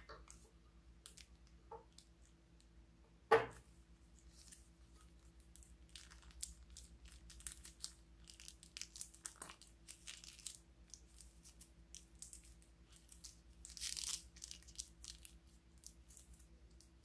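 Plastic piping bag crinkling and crackling as fingers squeeze and work it to push out the last of the thick slime, with one sharp knock about three seconds in.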